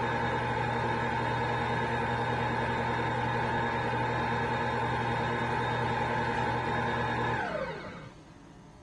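Cuisinart stand mixer motor running steadily, its whisk beating mashed potatoes in the bowl, then switched off about seven and a half seconds in, the whine falling in pitch as it spins down to a stop.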